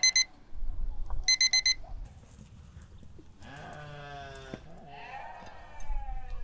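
Digital meat thermometer alarm beeping in two quick bursts of rapid high beeps, signalling that the smoked chicken has reached its set temperature. In the second half a farm animal bleats twice in long, wavering calls.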